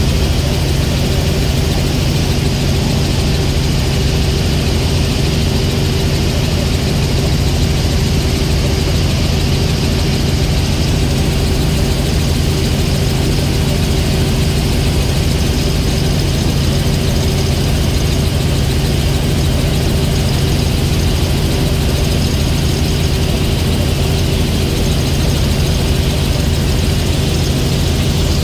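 Steady drone of a helicopter's engine and rotors, heard from inside the cabin, holding an even pitch and level throughout.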